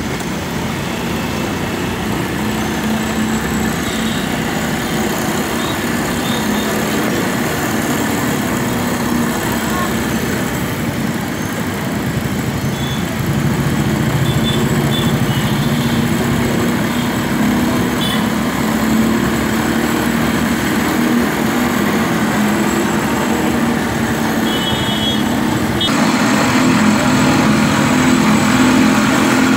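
Cotton candy machine running with a steady hum as its head spins sugar floss into the bowl, mixed with street traffic noise. The noise grows louder near the end.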